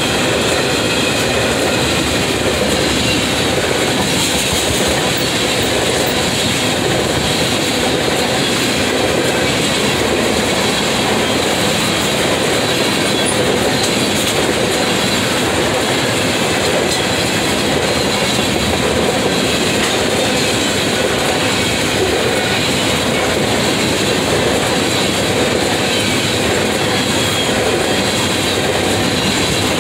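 Freight train tank cars rolling past, their steel wheels on the rails making a steady, unbroken rolling noise.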